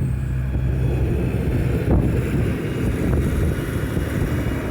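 Wind buffeting the microphone as a low, steady rumble over a running vehicle, with two light knocks about two and three seconds in.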